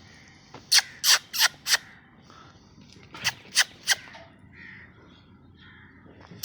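A crow cawing in quick runs of harsh calls: four caws, then three, then a single one at the end.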